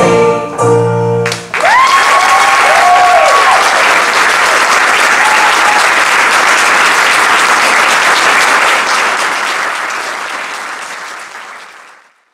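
A choir's final held chord cuts off about a second and a half in, then an audience applauds, the clapping fading out near the end.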